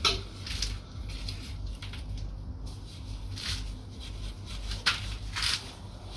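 Small belt- and chain-driven lathe turning slowly with a low steady hum, with a few short metallic scrapes and clicks scattered through, the sharpest one right at the start.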